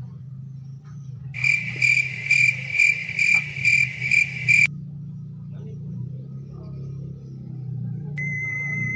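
Cricket chirping, an even run of about two and a half chirps a second that starts about a second and a half in and cuts off abruptly some three seconds later. Near the end a held electronic tone begins.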